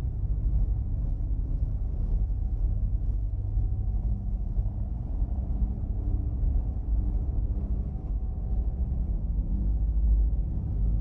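Science-fiction UFO sound effect: a steady deep rumble with faint held tones above it.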